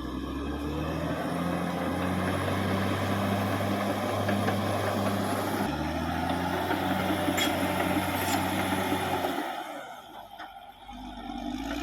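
Caterpillar D6R XL bulldozer's diesel engine running steadily, rising in pitch at the start, with an abrupt break about halfway, and dying away near the end.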